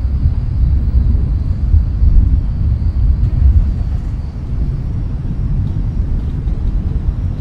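Outdoor ambience dominated by a loud, low rumble that swells and falls irregularly, with a faint steady high hiss above it.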